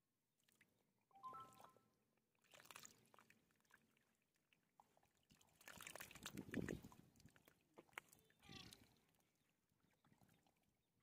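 Near silence broken by a few faint, brief sounds: a short pitched call about a second in, some knocks and rustles midway, and a short animal call that glides up and down later on.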